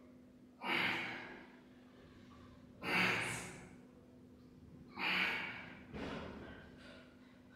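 A man breathing out hard with each press of a pair of 20 kg dumbbells on an incline bench. There are three strong exhalations about two seconds apart and a softer one near the end: the effort breath of heavy lifting.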